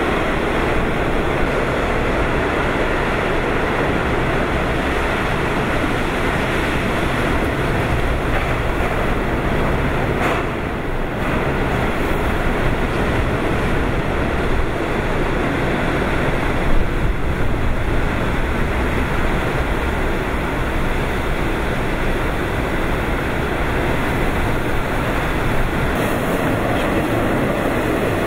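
Typhoon eyewall wind and driving rain: a steady, dense rush of wind and heavy rain, with a brief stronger gust about seventeen seconds in.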